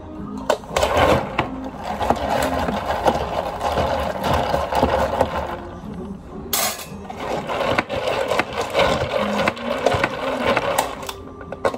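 Long bar spoon stirring ice in plastic cups of iced grapefruit ade, the ice rattling and clinking against the cup walls. It goes on in two long stretches with a short break and a sharper knock about six and a half seconds in.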